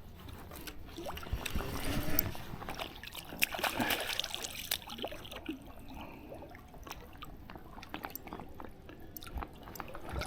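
Water sloshing and dripping with small, irregular splashes and clicks: a netted steelhead moving in the water while it is handled and unhooked.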